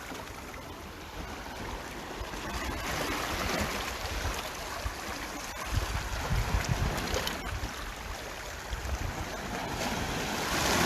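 Gentle sea swell washing in, surging about three seconds in and again near the end, with wind rumbling on the microphone.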